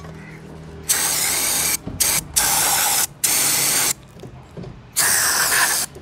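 Aerosol cleaner spray hissing into a throttle body in five short bursts, each under a second long. The second burst is very brief, and the last comes after a pause of about a second.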